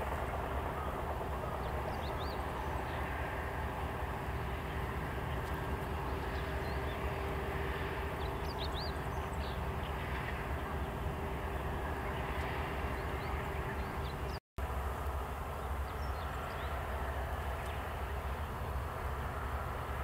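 Steady low rumble of distant vehicle traffic over a rural field, with a few faint, short, high bird chirps scattered through. The sound cuts out for a moment about two-thirds of the way through.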